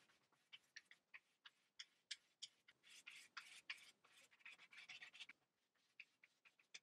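Faint, quick, irregular scratchy strokes of a crayon rubbed back and forth across paper while colouring in.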